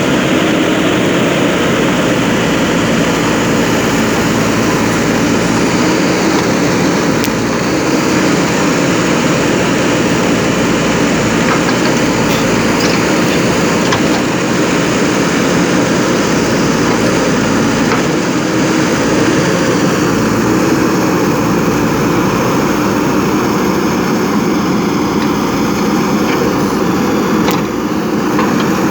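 Diesel engine of a JCB 3DX backhoe loader running steadily while it works, with a few faint ticks.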